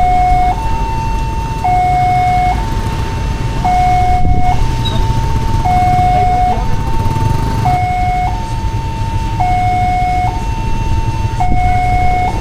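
Railroad level-crossing warning alarm sounding a steady two-tone signal, swapping between a lower and a higher tone about once a second, over a low background rumble.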